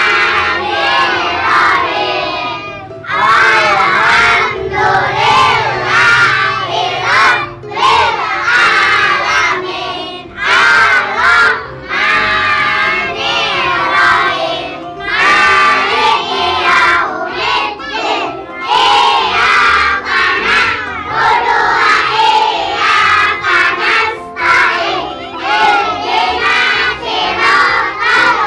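A group of children reciting a prayer aloud together in unison, in a chanting rhythm with brief pauses between phrases.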